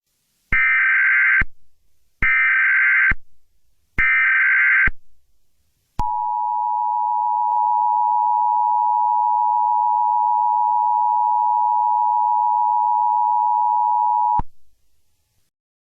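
Emergency Alert System header: three short bursts of SAME data tones, each about a second long with a brief gap between, then the steady two-tone EAS attention signal held for about eight seconds before cutting off sharply.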